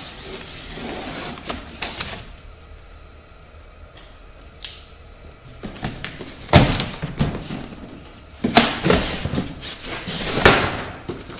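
Utility knife slicing through a cardboard box, then the cut-off cardboard side panel scraping and rustling loudly as it is pulled away from the styrofoam packing.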